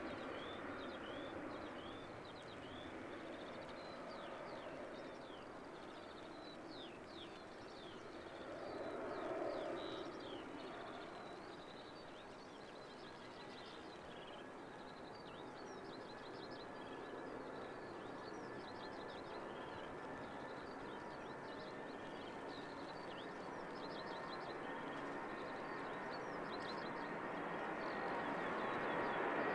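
Distant jet-engine noise of an Airbus A330 at takeoff power, a steady rush that grows louder near the end as the airliner rotates toward the camera. Many small birds chirp over it throughout.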